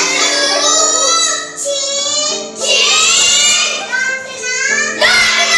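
Young voices singing a song with musical accompaniment of steady held chords.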